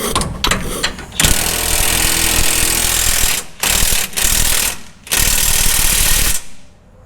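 A power tool running in repeated bursts: a few short blips, then a long run of about two seconds, more short blips, and a last run of about a second that stops sharply near the end.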